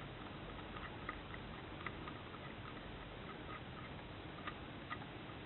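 A few light, scattered clicks and taps of steel parts of a Lee universal decapping die being handled and fitted together, as the decapping rod is worked into the die body, over a steady faint hiss.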